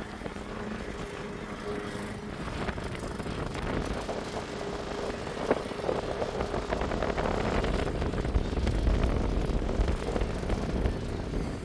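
Wind buffeting the microphone, a rough rumbling noise that swells about eight seconds in.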